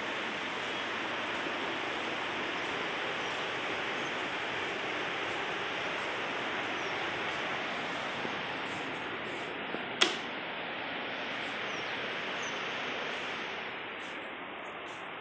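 Steady rushing noise, with one sharp click about ten seconds in; the noise drops a little near the end.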